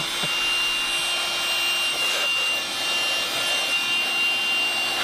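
Air duster blowing a steady, loud hiss of air through a desktop PC case to clear out dust, with a thin steady high whine under it.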